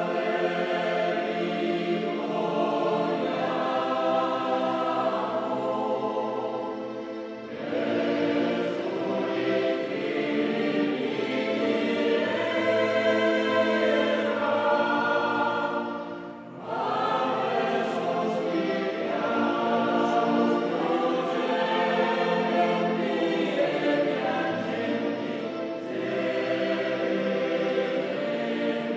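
A choir singing in long held phrases, with a short break about 16 seconds in.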